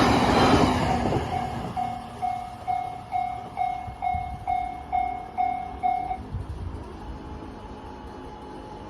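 A train finishes passing the crossing and fades out in the first second. Then the Japanese railroad crossing alarm rings its kan-kan strikes, a little over two a second, about eleven times, and stops about six seconds in now that the train has gone.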